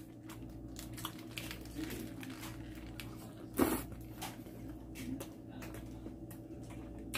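A person chewing a mouthful of shrimp burger close to the microphone: soft wet squishing mouth sounds with many small clicks, and one louder bite or mouth sound about three and a half seconds in.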